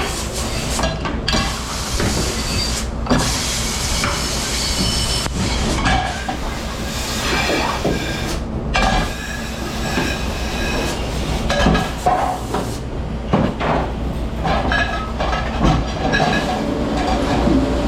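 Commercial dish room at work: a dish machine hums steadily while dishes, racks and utensils clatter and clank irregularly.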